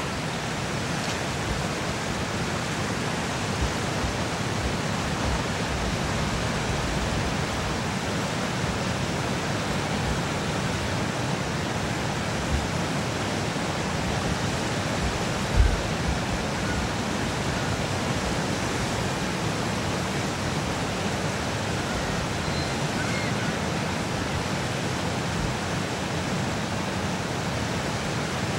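Steady rushing roar of river water pouring over a dam spillway and churning into whitewater below. About halfway through, a brief low thump.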